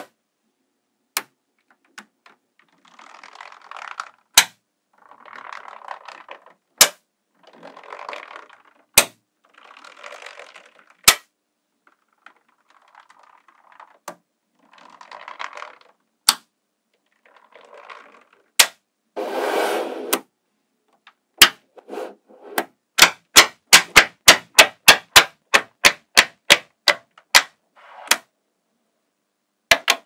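Small neodymium magnetic balls clicking sharply as they snap together, with soft scraping between the clicks as strips of balls are pushed along the table. After a longer, louder scrape about two-thirds of the way in, the clicks come quickly, about three a second.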